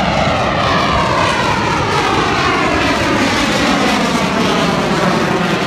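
Fighter jet's engines after a low pass: a loud, steady jet rush whose pitch slowly falls as the jet climbs away.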